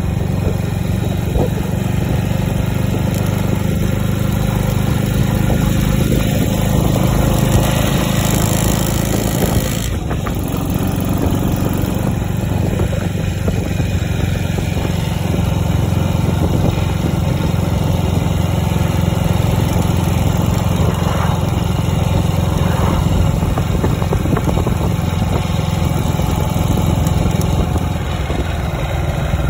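Classic motorcycle engine running steadily while riding along the road, dipping briefly about ten seconds in.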